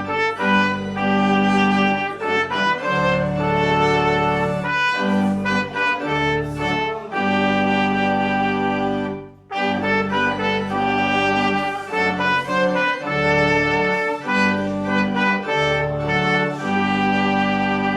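Instrumental church music: slow, sustained chords in two phrases, breaking briefly about nine and a half seconds in.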